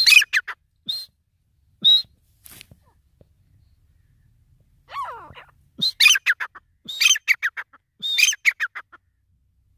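Grey francolin calling: a quick burst of high, falling notes at the start and a few single notes, then three fast runs of notes about a second apart in the second half.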